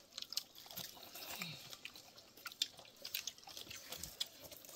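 Scattered small wet clicks and smacks of people chewing and eating rice with their fingers, coming at an irregular pace.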